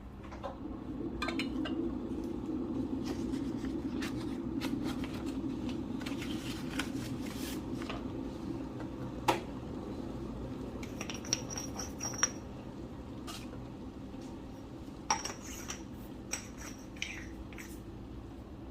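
Coffee brewing gear being handled: scattered taps and clinks of ceramic and glass, a few of them ringing briefly, over a steady low rush that fades after the first half.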